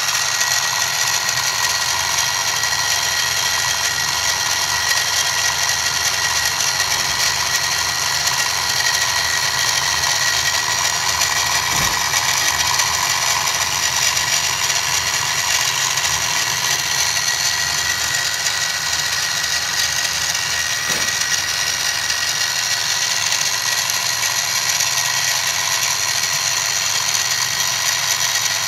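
Harbor Freight 44991 mini mill running steadily with a high whine as a 1/8-inch four-flute end mill plunges through and cuts a slot in aluminum.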